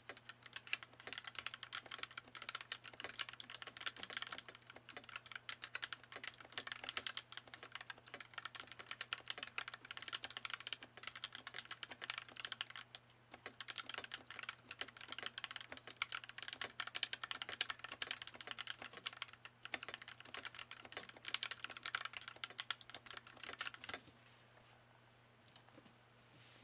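Fast, continuous typing on a TMOv2 40% custom mechanical keyboard with a polycarbonate case and POM Jelly keycaps. There is a short pause about halfway through, and the typing stops a couple of seconds before the end.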